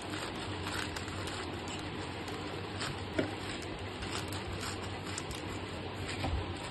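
Scissors snipping through a plastic courier mailer, the plastic crinkling and rustling as it is cut and handled, in short scattered clicks with a sharper one about three seconds in.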